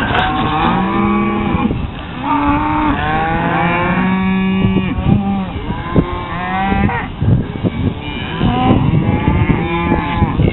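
A herd of cattle mooing and bawling, many calls overlapping one after another without a break, some low and drawn out, others higher.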